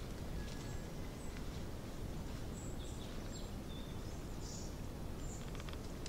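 Open-air rural ambience: a steady low background noise with a few short, faint bird chirps scattered through it.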